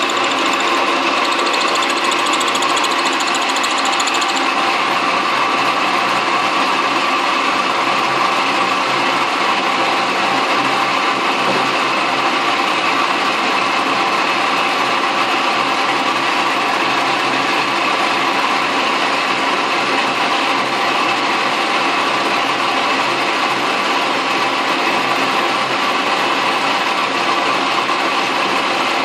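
Metal lathe running steadily with a tool bit spinning in the chuck, milling across a metal block held in a vertical milling attachment on the cross slide. A thin high whine fades out about four seconds in, while the machine's steady run carries on.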